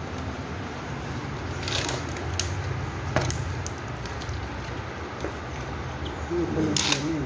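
A few scattered clicks and taps of tools and fan parts being handled, over a steady low hum.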